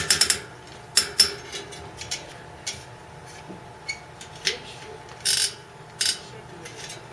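Irregular metallic clicks and short scrapes from bicycle wheel-truing work: tools and metal parts knocking and rubbing as a wheel is adjusted in a truing stand. There are about ten separate ones, the longest near the end.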